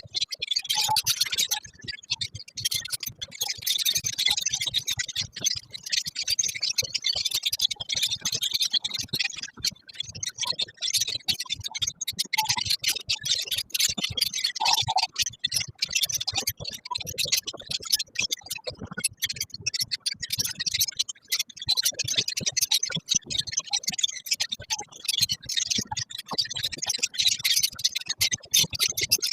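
A colony of lovebirds chattering, a dense, continuous mass of rapid high-pitched chirps and clicks.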